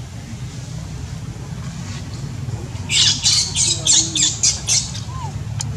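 A run of about eight harsh, high-pitched squawking animal calls in quick succession, starting about three seconds in and lasting about two seconds, over a steady low background hum.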